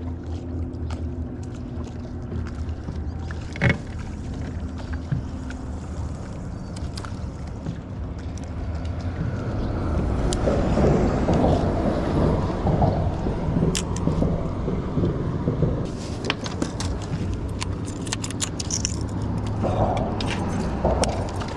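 Bass boat's motor humming steadily on the water, with a sharp knock a few seconds in. From about halfway a louder rushing noise builds, with scattered clicks and rattles near the end.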